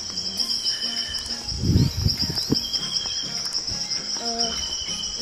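Steady high-pitched trilling of insects in tropical vegetation, with a brief low rumble about two seconds in.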